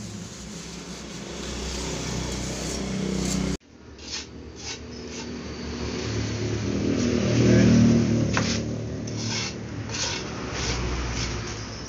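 A steel trowel scrapes and taps on wet concrete inside a wooden mould, with short scraping knocks. Under it runs a steady engine hum that swells to its loudest about eight seconds in. The sound drops out abruptly at a cut a little over three seconds in.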